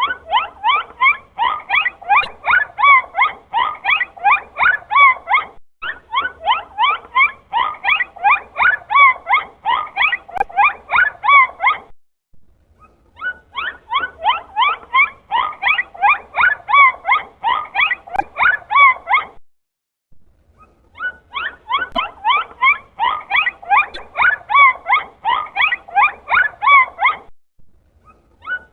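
Dolphins chattering: rapid squeaky calls, several a second, each bending up or down in pitch. They come in bouts of about seven seconds with short pauses of about a second between them.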